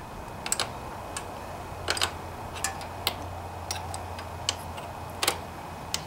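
Light, irregular metal clicks and ticks of a half-inch open-end wrench against the carburetor bowl fastener and fuel solenoid as it is fitted, turned and repositioned to loosen the bowl. The clicks come over a low steady hum.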